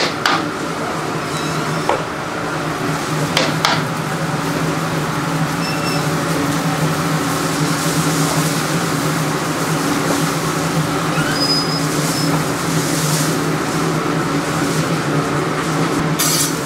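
Steady machine hum of a restaurant kitchen's ventilation, with a few clicks and knocks of utensils in the first few seconds and a burst of scraping near the end.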